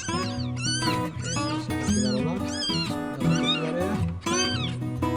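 Five-day-old newborn kittens mewing, repeated high thin cries about twice a second, over background music.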